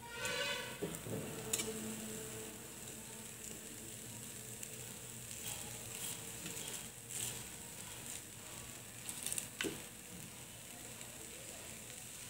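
Egg dosa frying faintly on a hot tawa while a wooden spatula spreads beaten egg over it, with a few sharp taps and scrapes of the spatula. A brief pitched sound comes right at the start.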